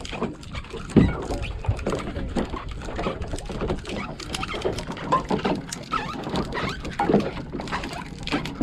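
Irregular knocking and clicking, with one heavy low thump about a second in.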